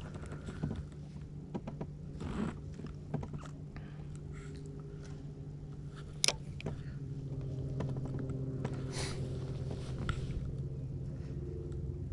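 Spinning rod and reel being handled: scattered small clicks and taps, with one sharp click about six seconds in, over a steady low hum that grows a little louder about eight seconds in.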